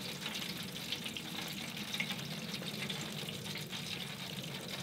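Freshly deep-fried pieces of lake trout and the hot oil in an electric deep fryer sizzling and crackling steadily, with a few small pops.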